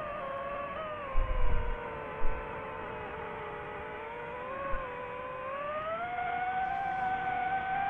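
DJI FPV quadcopter's motors and propellers whining as it flies. The pitch sinks slightly, then climbs and holds higher over the second half. There are a few brief low thumps, about a second in and again near two seconds.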